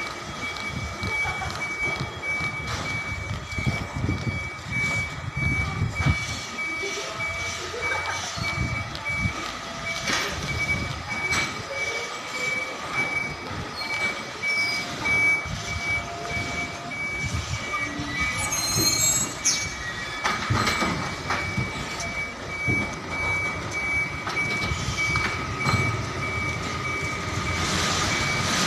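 A container truck's reversing alarm beeping at an even pace over the truck's running engine, with a brief high squeal about two-thirds of the way through.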